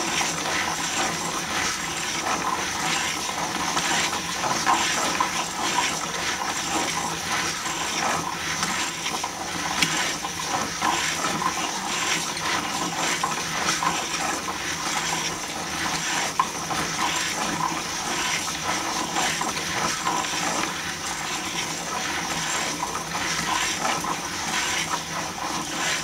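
Wooden gears of a hand-turned cycloid drawing machine running without a break: a steady rattling whir of meshing teeth with many small clicks.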